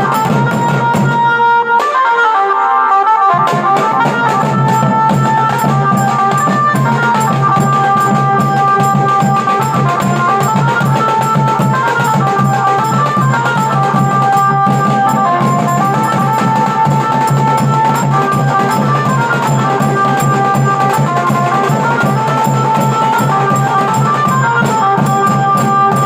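Wedding band music: large double-headed drums beaten in a steady, dense rhythm under a melody of held notes that step up and down. The drums drop out for about two seconds near the start, then come back in.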